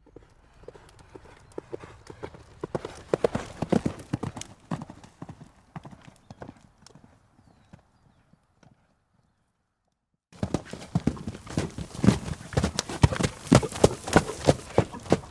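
Horse hooves clip-clopping. The hoofbeats grow louder and then fade away. After a short silence, a second, louder run of hoofbeats starts abruptly.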